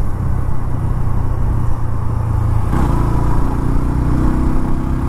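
Bajaj Pulsar N125's single-cylinder engine running on the move, with wind and road noise. About three seconds in, its note shifts lower.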